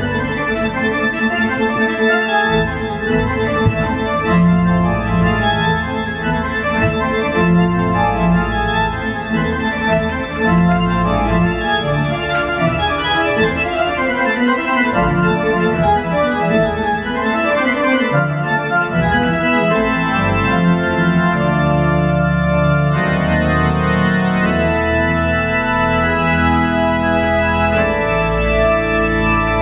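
Solo keyboard music in an organ-like voice, played on a Korg Nautilus music workstation: busy runs of notes over sustained bass notes, giving way to longer held chords about two-thirds of the way through.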